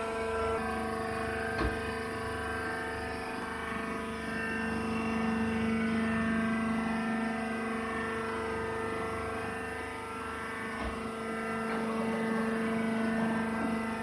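A wood-shavings hydraulic baler's power unit, an electric motor and hydraulic pump, running with a steady multi-toned hum that swells slightly at times.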